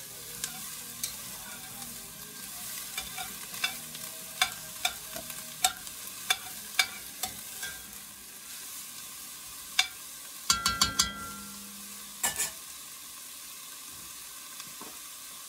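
Chopped onions and celery frying in melted butter in an enameled Dutch oven, a steady sizzle under the clicks and scrapes of a metal spoon stirring against the pot. There is a quick run of knocks about ten and a half seconds in, and two more near twelve seconds.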